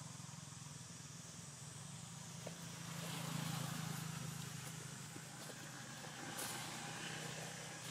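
A motor vehicle engine hums steadily, growing louder about three seconds in and then easing off, over a faint steady high hiss.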